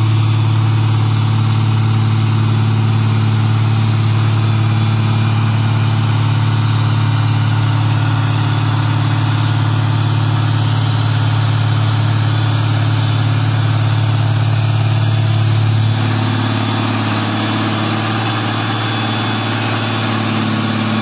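The diesel engine of an articulated underground mining vehicle running steadily at one speed. It gets a little quieter about three-quarters of the way through.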